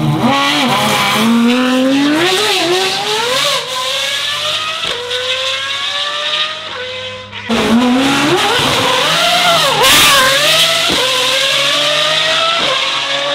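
Pagani Huayra R's naturally aspirated V12 with unrestricted exhaust accelerating hard from a standing start, its pitch climbing steeply and dropping back at each upshift. About seven seconds in the sound cuts off abruptly and picks up on another full-throttle run with more upshifts.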